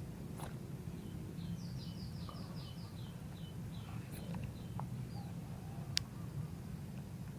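A bird singing a quick run of about a dozen short, high notes, each falling in pitch, the run stepping lower as it goes at about four notes a second. It sings over a steady low rumble, with one sharp click near the end.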